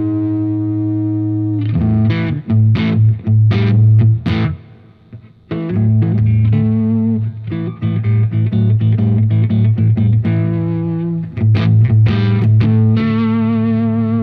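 Electric guitar on its neck pickup, played through a Diezel Schmidt amp with an Origin Effects Revival Drive overdrive and an R Weaver FX Scarlet Vibe: lightly overdriven chords and single notes left to ring, with a short break about five seconds in. Near the end, held notes waver with the vibe's pulsing modulation.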